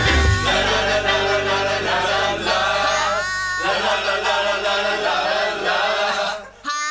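Closing theme song: a voice singing over a band accompaniment with a steady bass. The song ends just before the close, and a short high voice-like note starts right at the end.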